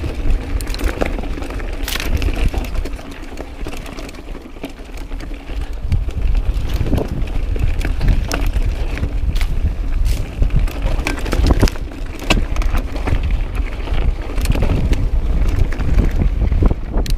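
Mountain bike rolling fast down a rocky dirt trail: wind rumbling on the microphone, with tyres crunching over stones and frequent sharp clattering knocks from the bike over bumps. It eases off briefly a few seconds in.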